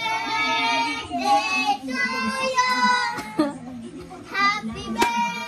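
Children's high voices singing out in long, drawn-out sing-song notes, with shorter excited calls after. One sharp click near the end.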